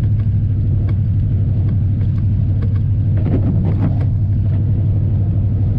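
A 1990 Chevy 3/4-ton four-wheel-drive pickup driving at a steady pace, its engine and road noise making a constant low hum inside the cab. The truck has a blown head gasket but is still running well.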